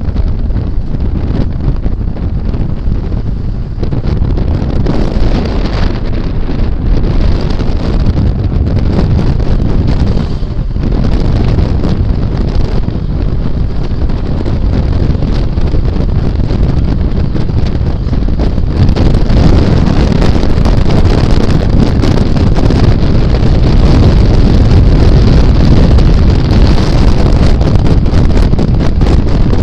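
Loud, steady low rumble of wind buffeting the microphone, growing louder about two-thirds of the way through.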